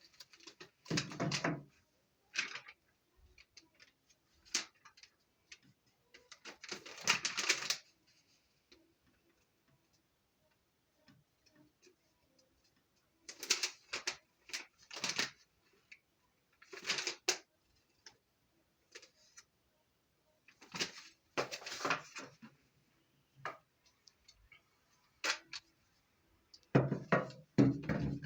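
Intermittent handling noise: short rustles and clicks, each lasting about a second or less, with quiet gaps between them.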